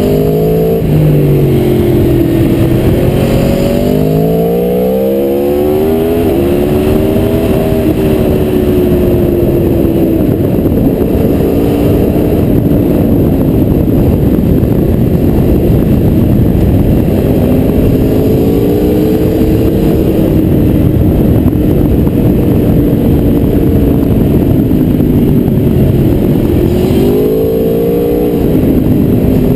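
Aprilia Tuono V4R's V4 engine heard from an onboard camera at riding speed: its pitch climbs in steps as it pulls up through the gears in the first few seconds, eases off and falls as the bike slows through the middle, and rises and drops again near the end. Heavy wind rushes over the microphone throughout.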